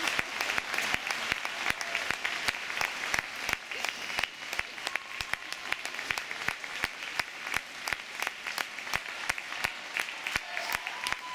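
Audience applauding in an ice rink: a modest crowd's steady clapping, with the separate hand claps clearly heard.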